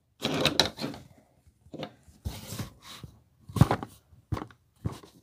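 Hard plastic clicks and knocks of a Beyblade top and its parts being handled on a tabletop: several separate taps, the loudest about three and a half seconds in.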